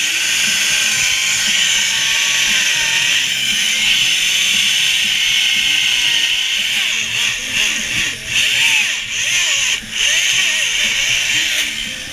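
Chainsaws cutting into blocks of ice, their engines rising and falling in pitch as they work. Several brief drops in the noise come in the second half, as the saws ease off between cuts.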